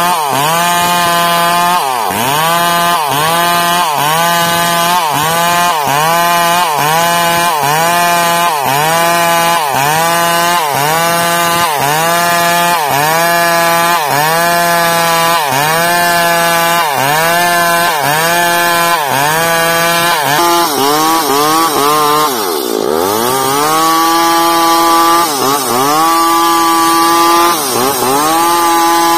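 Two-stroke chainsaw cutting bayur wood, its engine pitch dipping and recovering about once a second as the chain bogs under load. About two-thirds through the revs fall steeply and then climb back up.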